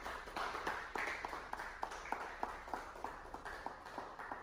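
Small group of a few people applauding: a quick, uneven run of individual hand claps that thins out near the end.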